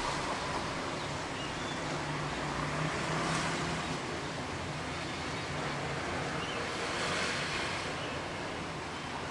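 Light drizzle falling, a steady soft hiss, under a faint low hum. The hiss swells gently twice, about three seconds in and again about seven seconds in.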